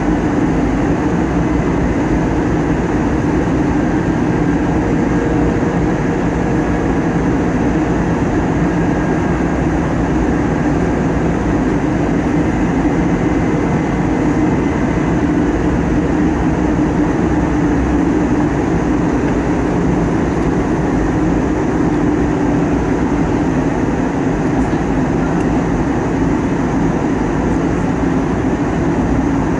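Steady cabin noise of an Airbus A320neo in flight, heard from a window seat beside its Pratt & Whitney geared turbofan engine: an even rush of engine and airflow with a low steady hum.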